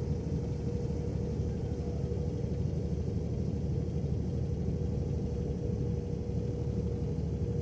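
Wind buffeting the microphone outdoors: a steady low rumble with a faint steady hum above it.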